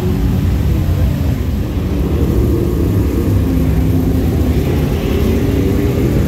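Dirt late model race car engines running, a loud continuous drone with no break.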